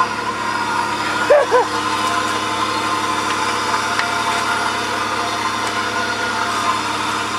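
Chevrolet Impala engine idling steadily shortly after a cold start, having sat unstarted for a very long time. About a second and a half in, two brief rising-and-falling sounds stand out above the idle.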